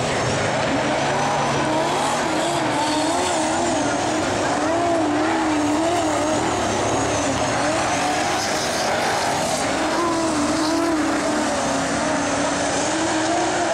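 Several speedway race cars running laps on a dirt oval, their engines rising and falling in pitch every second or so as they go round.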